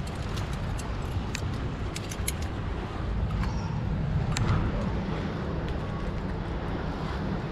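Climbing gear (cams and carabiners) clinking, with hands and shoes scraping on granite while climbing a crack, in scattered short clicks over a steady low rumble.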